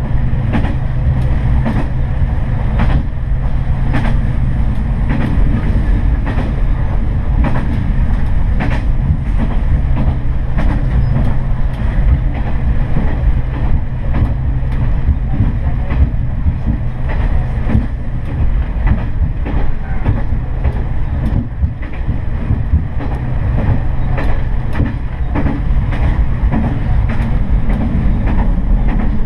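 Diesel railcar running along the line, heard from on board: a steady engine drone with the wheels clicking over rail joints.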